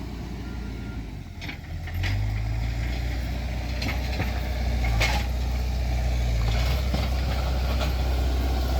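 Heavy land-clearing tractor's engine running with a steady low drone that grows louder about two seconds in, with a few brief sharp sounds over it.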